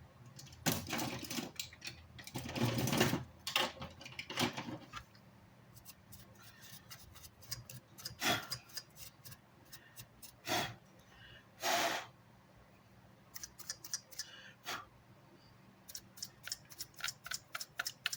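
Bench work on an amplifier: a run of small clicks and scrapes from hands and tools, with a few short noisy bursts.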